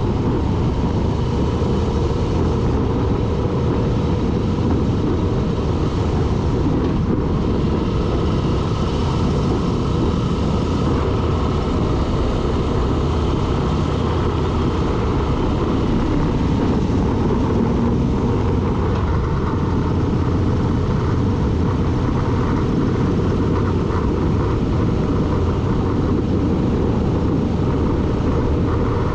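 A vehicle driving on at a steady pace: a constant rush of engine, road and wind noise over the camera's microphone, holding one level throughout.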